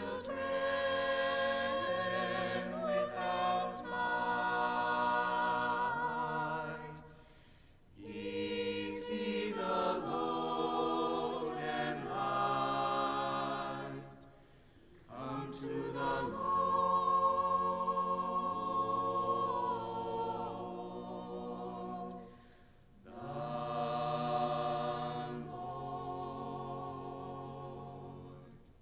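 Mixed choir of men's and women's voices singing sustained chords a cappella, in four phrases with short breaks between them; the last phrase fades away.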